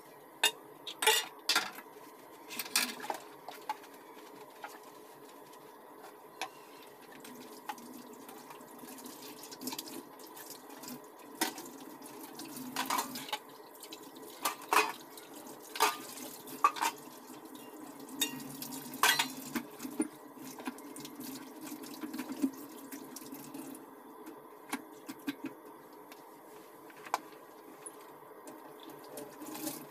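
Dishes being washed by hand in a stainless steel sink: irregular clanks and clatters of metal pans and a tray, sponge scrubbing, and the tap running for stretches.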